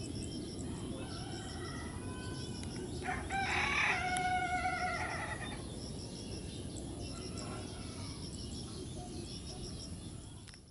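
A rooster crows loudly about three seconds in, after a fainter crow just before it. Small birds chirp throughout, over a steady low rumble from the distant jet on the runway.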